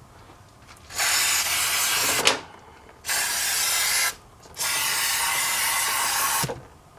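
Aerosol brake cleaner sprayed through its straw onto the brake parts in three hissing bursts, the last one the longest.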